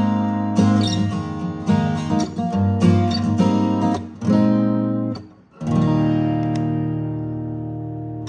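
Blueridge BR-160 dreadnought acoustic guitar strummed: a run of chords, then just past halfway one chord struck and left to ring, slowly fading.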